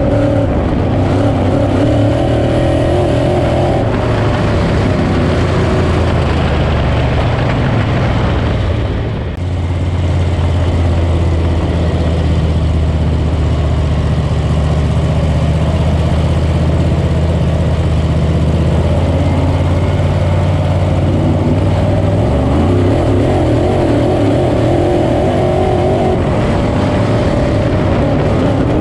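The small-block V8 crate engine of a 602 Sportsman dirt-track race car, heard from inside the cockpit at racing speed. Its note dips briefly about a third of the way in, holds steady and strong, then changes again after about two-thirds of the way.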